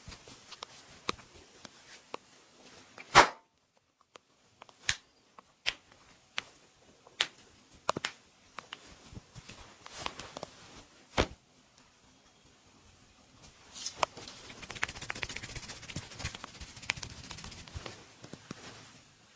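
Hand massage sounds: a series of irregular sharp smacks, the loudest about three seconds in, then a soft steady rustle of hands working over skin near the end.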